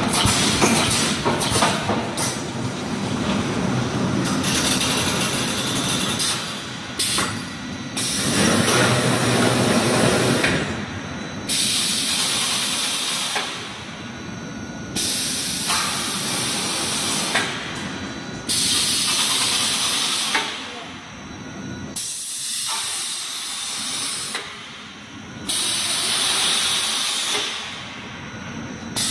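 Pneumatic fence panel mesh welding machine running. Compressed air hisses in repeated bursts, each two to three seconds long and coming every three to four seconds, over the general running noise of the machine.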